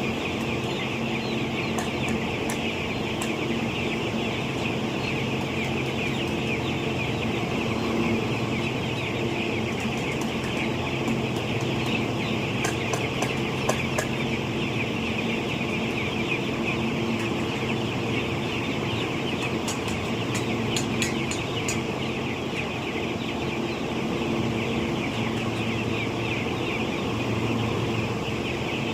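A large flock of broiler chickens in a poultry house, keeping up a dense, continuous chorus of overlapping clucks and cheeps. A steady low hum runs underneath, with a few brief clicks about halfway through and again about two-thirds through.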